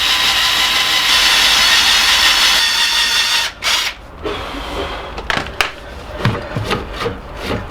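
Electric drill running under load, boring out the seized rear suspension pivot of a 1963 Moulton Deluxe bicycle, for about three and a half seconds before it stops. Scattered sharp metallic knocks and clicks follow.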